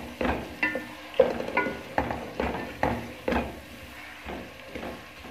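A spatula scraping and stirring around a metal pot as a masala of onion, ginger-garlic paste and tomatoes fries in oil, in quick strokes about three a second over a light sizzle.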